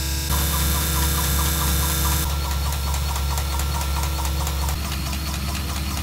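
Steady low engine hum, changing abruptly about three times.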